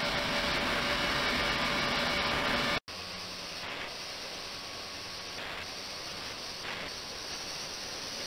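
Ultrasonic water tank running, its cavitating liquid giving a steady hiss with faint steady tones under a 72 kHz, 300 W drive. About three seconds in the sound cuts off abruptly and resumes as a quieter, even hiss with brief surges, the tank now driven at 28 + 72 kHz, 450 W.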